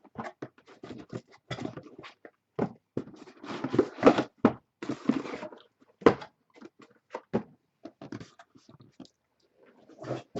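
Cardboard card boxes and case packing being handled: irregular knocks, scrapes and rustles as the case is unpacked.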